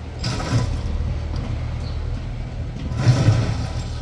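Mini crawler excavator's engine running steadily while its bucket scrapes through gravel and dirt between the rails, twice: once just after the start and again, louder, about three seconds in.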